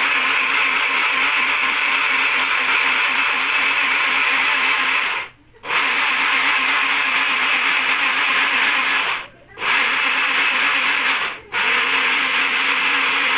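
Small personal bottle blender running steadily, blending moringa leaves with water. The motor cuts out briefly three times, about five, nine and a half and eleven and a half seconds in, and stops near the end.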